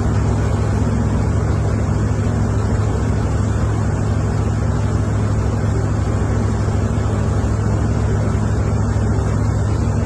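A steady, loud engine drone with a low hum, with wind rushing on the microphone.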